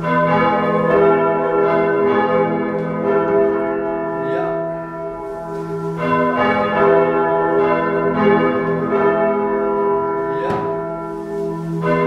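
Church bells swung by hand from bell ropes, ringing continuously. Fresh strokes come every few seconds over a sustained, overlapping hum of several bell tones.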